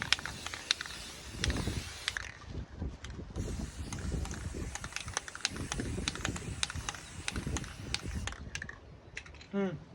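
Aerosol can of spray primer hissing in two long sprays, the first stopping about two seconds in and the second running until near the end, with scattered clicks and knocks from handling in between.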